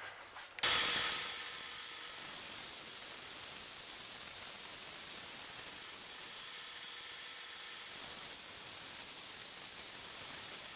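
Bandsaw running and cutting through a small metal eccentric strap casting. A steady high hiss with a thin whine comes in suddenly about half a second in.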